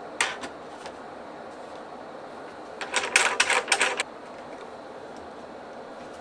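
A single sharp click just after the start, then about a second of rapid clicking and rattling, like small hard objects being handled, around the middle.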